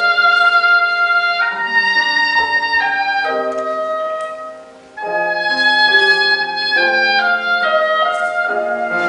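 Oboe playing a slow, legato melody of held notes over piano accompaniment. A phrase dies away about four and a half seconds in, and the next begins at once about five seconds in.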